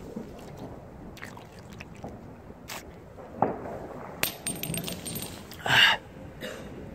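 Handling noise from a handheld phone: scattered small clicks and rustles, with a cluster of light clinks about four seconds in and a short, louder rush of noise near the end.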